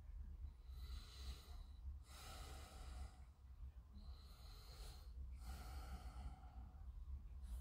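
A person breathing slowly close to the microphone: four breath sounds of about a second each, over a low steady hum.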